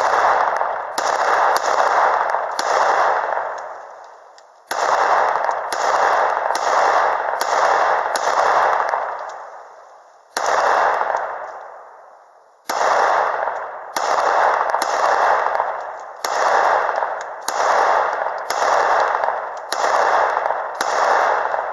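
Glock 19 9 mm pistol firing a long series of shots, about two a second in strings, with brief pauses between strings and each report echoing out.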